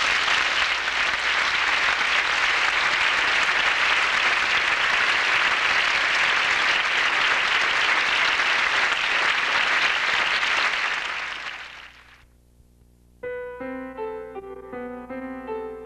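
Audience applauding steadily, fading out about eleven to twelve seconds in. After a second of near silence, music of single pitched notes begins.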